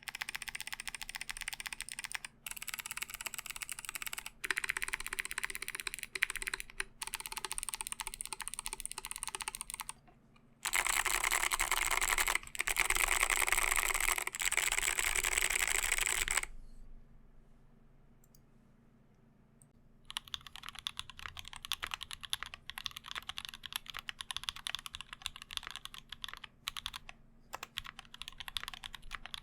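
Typing on a mechanical keyboard with stock Kailh BOX Navy clicky switches, with a louder stretch of very fast, continuous typing. After a pause of a few seconds, typing resumes on a different keyboard, a KBD Blade60 with lubed and filmed C3 Tangerine linear switches on a brass plate, a lighter clacky sound.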